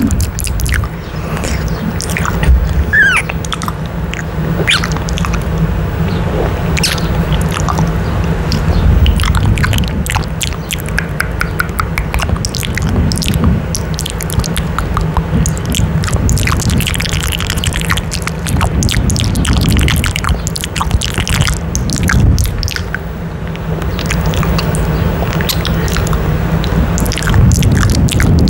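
Close-up kissing and wet mouth sounds with the lips pressed to a microphone grille: an irregular string of soft smacks and lip clicks over a steady low hum.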